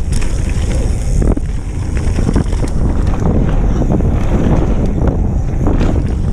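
Wind buffeting the camera microphone while a mountain bike's tyres roll fast over a dirt trail, with short knocks and rattles from the bike over bumps, one loud one about a second in.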